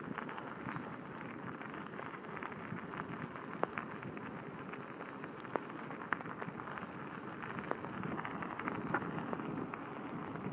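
Kickbike wheels rolling over wet asphalt, a steady crackling rush with many small scattered clicks and taps.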